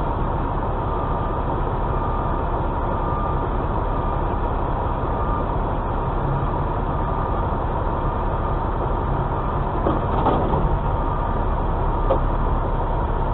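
Semi-truck's diesel engine running at low revs, a steady low rumble heard from inside the cab, with a faint thin high tone over it.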